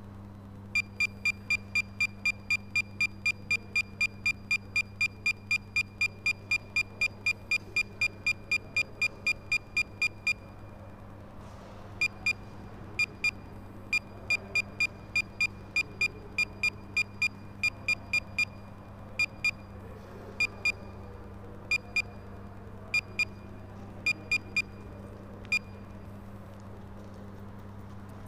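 Beeper on a crashed FPV quadcopter sounding a high-pitched beep about three times a second for roughly ten seconds, then pausing and resuming as scattered single and double beeps that stop after about 25 seconds. A steady low electrical hum runs underneath.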